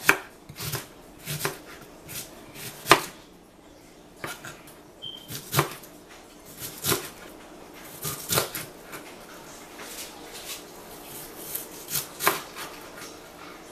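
Kitchen knife slicing an onion on a plastic cutting board: about twenty uneven knocks of the blade meeting the board, roughly one a second with a few quicker strokes.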